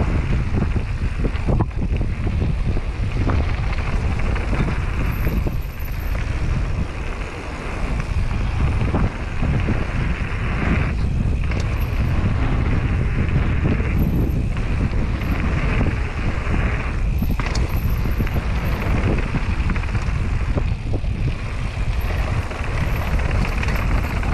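Wind rushing over the microphone and mountain-bike tyres rolling over a loose gravel trail.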